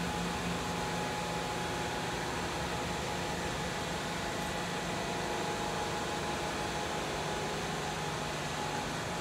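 Steady mechanical hum with a constant hiss: a low hum and a faint higher whine that hold unchanged throughout.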